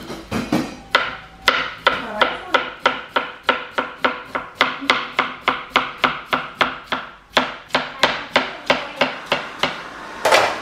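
A kitchen knife slicing a pale green squash on a plastic cutting board, each cut ending in a sharp tap on the board, about three or four strokes a second with a couple of brief pauses. A short, louder rasping noise comes near the end.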